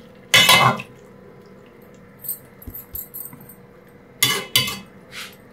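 Metal cooking utensils clattering against a pot: one loud scraping clatter about half a second in, a few faint clicks, then two sharp clinks about four seconds in.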